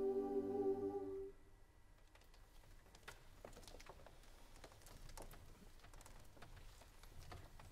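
A choir's held final chord, sung over steady pitches, cuts off about a second in. Then there are faint, scattered clicks and rustles as the performers shift on stage.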